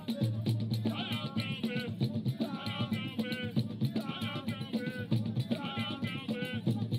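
Music: singing over drums and hand percussion keeping a steady beat.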